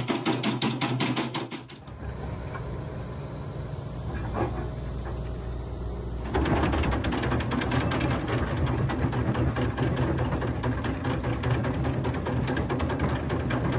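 Excavator-mounted Xcentric jaw crusher bucket crushing stone rubble with a fast, dense clatter, over the steady run of the excavator's diesel engine. The clatter stops about two seconds in, leaving mostly the engine with a few knocks, and starts again loudly about six seconds in.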